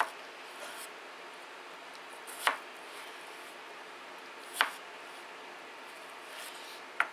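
Large kitchen knife chopping through peeled raw potatoes onto a cutting board: a sharp knock every two seconds or so.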